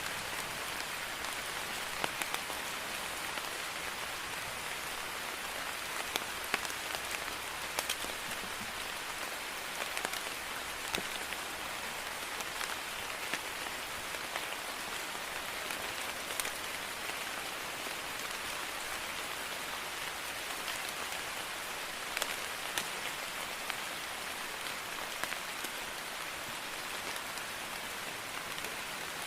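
Steady rain falling, an even hiss dotted with scattered sharper drop hits.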